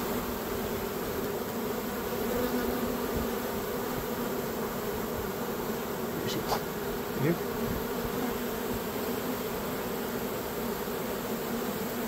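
A large honey bee swarm buzzing: a steady, even hum of thousands of bees clustered together, with a couple of faint clicks a little past the middle.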